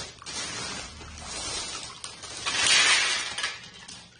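Loose pieces of clear, ice-cube-like filler clattering in a plastic bag and clinking into a wine glass, loudest about two and a half to three seconds in.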